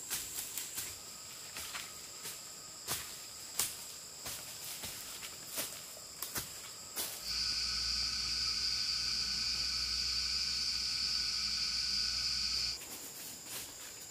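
Footsteps crunching on dry leaf litter, scattered crackles over a steady high insect drone of the tropical forest. About seven seconds in, a louder, steady high insect buzz takes over for some five seconds and cuts off abruptly, and the leaf crunching resumes.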